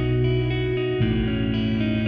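Background music: electric guitar with effects, sustained chords that change about a second in.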